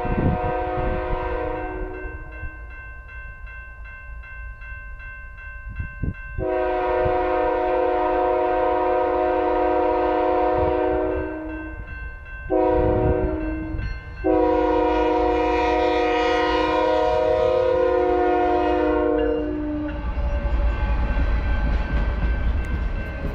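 BNSF locomotive's multi-chime air horn sounding for a grade crossing: the tail of one long blast, then a long, a short and a long, with a crossing bell ringing steadily underneath. From about 20 seconds in, the train rumbles past over the crossing.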